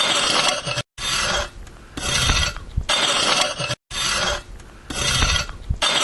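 Garden hoe blade scraping across the top of the soil to dig up weeds, in a run of repeated scraping strokes, each about half a second long.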